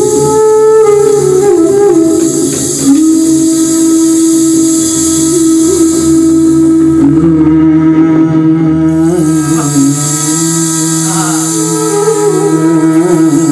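Live Indian-style ensemble of bansuri bamboo flute and harmonium, with tabla, playing a continuous melody of long held notes and slides.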